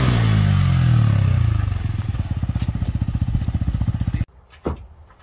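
Off-road dirt bike engine coming off the throttle, its note falling from a rev, then settling about two seconds in into a fast, lumpy idle. The engine sound cuts off suddenly near the end.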